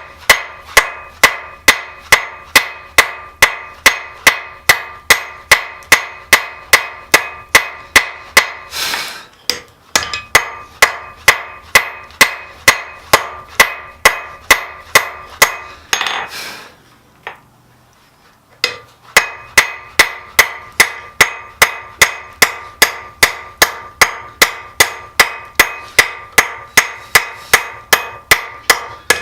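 Blacksmith's hammer striking steel on an anvil in a steady rhythm, about two and a half blows a second, the anvil ringing after each blow. The hammering breaks off twice, about a third of the way in and again just past halfway, each time with a brief rushing noise before the blows resume.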